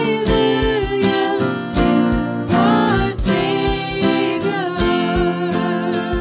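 A woman singing a slow worship song while strumming an acoustic guitar, with the held sung notes wavering in pitch over steady strum strokes.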